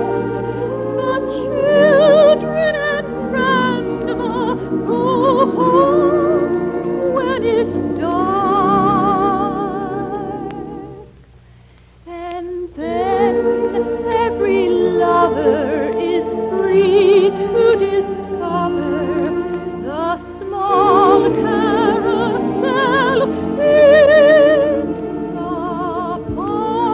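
Operatic soprano singing with wide vibrato over orchestral accompaniment, the music dropping away briefly about eleven seconds in before resuming.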